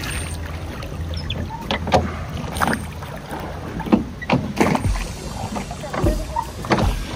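Rowboat oars working in their oarlocks and dipping into the water, giving irregular knocks and splashes every second or so, over a low wind rumble on the microphone.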